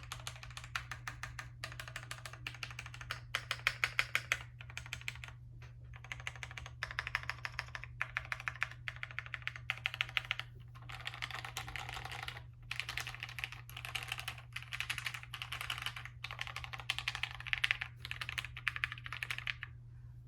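Typing on a custom mechanical keyboard, the Scarlet by Maker Keyboards, with lubed and filmed vintage Cherry MX Black linear switches on a top-mounted POM plate. Fast runs of keystrokes come in bursts, broken by short pauses.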